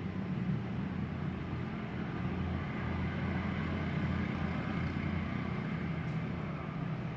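Mini CNC wood engraving machine running, a steady low hum with a grainy noise above it.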